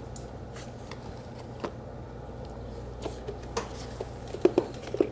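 Scattered light clicks and knocks of parts being handled as the air cleaner is fitted to a Honda GCV160 engine, with a few sharper knocks near the end, over a low steady hum.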